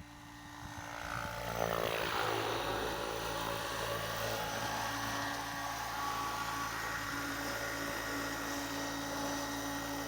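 Electric RC helicopter's motor and rotor whine, swelling in over the first two seconds, then holding steady.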